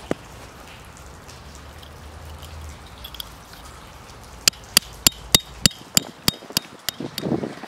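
A copper-headed hammer driving a tent peg through the corner loop of a canvas tent into the ground: about ten sharp strikes at an even pace of roughly three a second, starting about halfway through.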